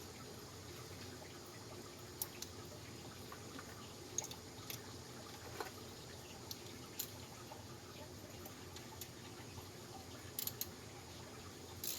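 Scattered small clicks and taps of a 1/4 inch socket and tools on the stator bolts as the stator is worked loose, sparse and irregular over a low steady hiss.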